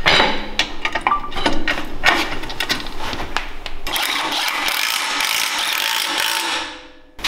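Metal parts clinking and knocking as a CVT driver clutch is fitted onto a Predator 212cc engine's crankshaft. About four seconds in, a cordless driver runs steadily on the clutch's crankshaft bolt to tighten it, then winds down and stops near the end.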